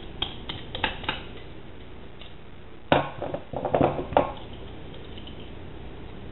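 Dishes and cutlery being handled: a few light clinks, then a short burst of clattering about three seconds in.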